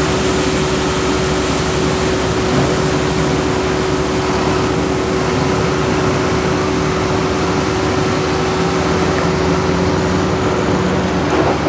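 Heavy diesel construction machinery running steadily, with a Volvo A25D articulated dump truck's engine driving past close by in the second half. A constant droning tone runs underneath.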